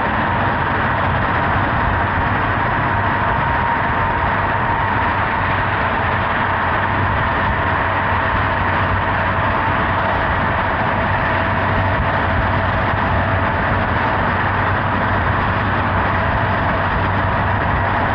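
Honda Hornet 900's inline-four engine running at a steady cruising speed, under a constant rush of wind and road noise.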